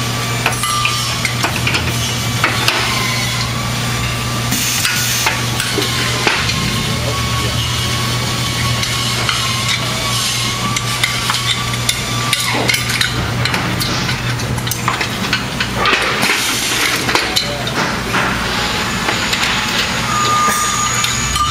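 Aluminium platform parts clanking and knocking as they are handled, stepped on and pinned together. Under this runs a steady hum of workshop machinery, with a high whine that falls and stops about halfway through.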